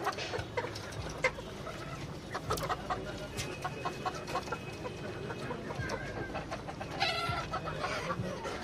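A flock of chickens clucking, many short calls overlapping, with one louder, longer call about seven seconds in.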